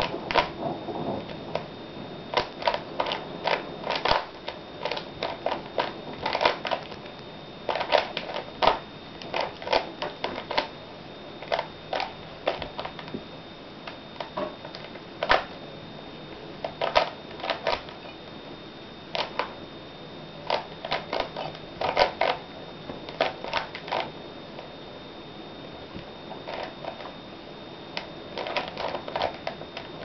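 Rubik's Cube being turned by hand: runs of quick plastic clicks and clacks as the layers are twisted, with short pauses between runs. A faint steady high tone sits underneath.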